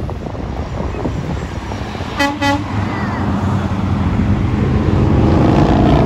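A vehicle horn gives two short toots about two seconds in, over roadside traffic. A passing vehicle's engine then grows steadily louder.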